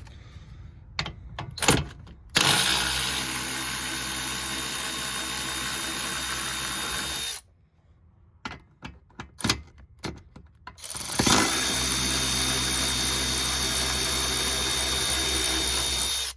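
Power drill turning a 12-point M10 bit to unbolt the rear seat mounting bolts: two steady runs of about five seconds each, with a few clicks and knocks of the tool being handled before and between them.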